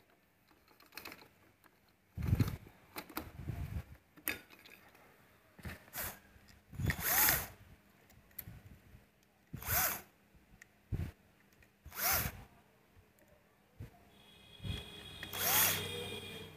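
A handheld power tool, drill or impact driver type, run in several short bursts a few seconds apart, with small metal clicks and clinks between, during work on a motorcycle engine's clutch.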